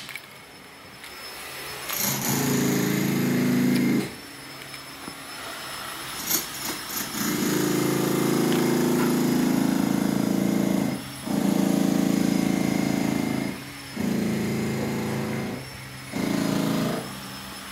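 A power tool running in bursts of about one to four seconds, switched on and off five times, with a steady hum.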